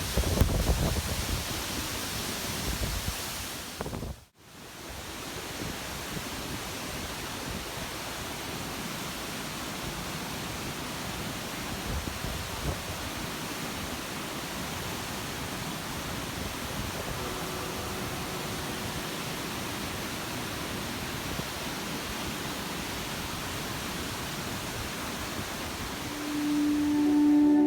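Steady rushing of falling water from a waterfall, with a brief cut-out about four seconds in. Music fades in near the end.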